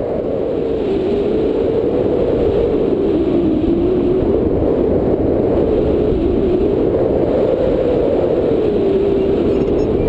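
Steady rushing noise, heaviest in the low end, with a hum that slowly rises and falls in pitch.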